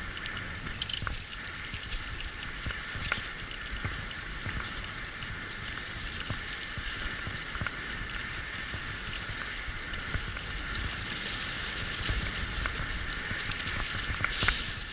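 A six-dog sled-dog team's rig rolling steadily along a trail: a constant crunching hiss of wheels and the team on the move, with scattered small clicks.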